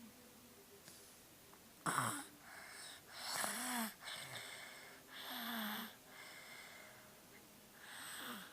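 Wheezy snoring, four snores about two seconds apart, the first one sharp and loudest; the snoring is heavy because the sleeper has a cold.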